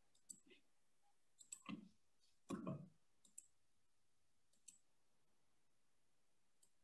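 Faint computer mouse clicks, a handful spaced irregularly, with two slightly louder, duller knocks near the middle.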